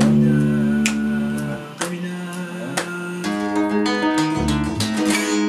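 Fretless electric bass through a vintage 1980s Boss chorus pedal, holding long low notes, with an acoustic guitar plucking notes over it. One bass note rings for about a second and a half, and a new one comes in a little after the middle.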